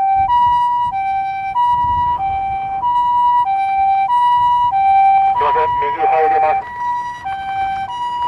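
Japanese ambulance's two-tone electronic siren, the "pee-po" call switching between a high and a low tone about every half second. A short, rougher burst of another sound overlaps it about five seconds in.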